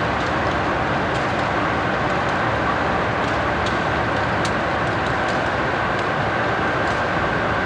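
Conrail diesel locomotives running as they move slowly past: a steady noise with a few faint clicks.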